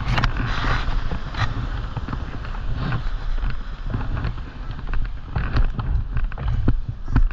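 Wind rumbling on the microphone, with scattered taps and knocks throughout.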